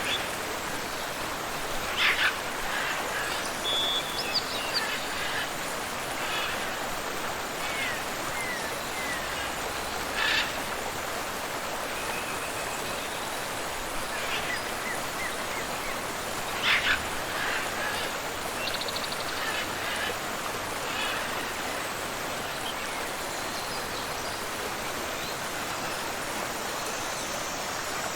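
Steady rush of a tropical waterfall and river, with a few short bird calls over the water, the loudest about 2, 10 and 17 seconds in.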